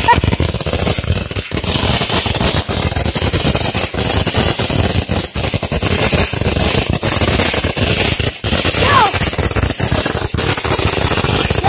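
A long string of firecrackers going off, a rapid and continuous crackle of bangs with no break.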